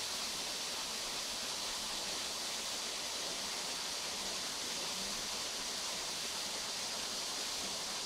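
Thin waterfall pouring down a mossy rock face: a steady, even rushing hiss of falling water.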